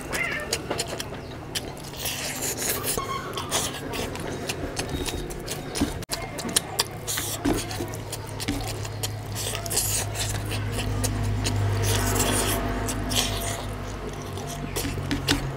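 Eating rice and curry by hand: fingers squish and mix the rice and oily mutton fat curry on a plate, then the food is chewed with lip smacking and many small wet clicks. A low steady hum runs underneath from about halfway through.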